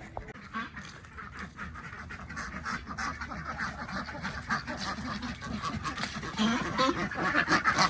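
A flock of ducks quacking together in a busy, continuous chatter that grows louder toward the end.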